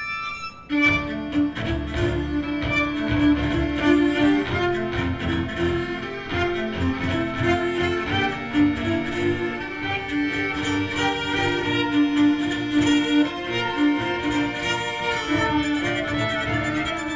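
Amplified string quintet of violins, viola and two cellos playing a fast, dance-like movement. A high held chord breaks off under a second in, and the full group comes in with a driving, rhythmic low end under repeated string figures.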